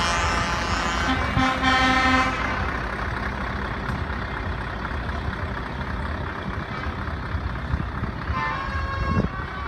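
Truck air horn sounding for about two seconds, then a steady background of outdoor noise.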